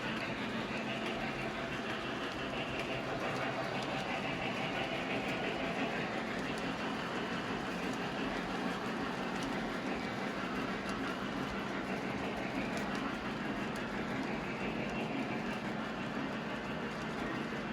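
Model train running along the layout track: a steady rolling rumble with faint clicks from the wheels over the rail joints.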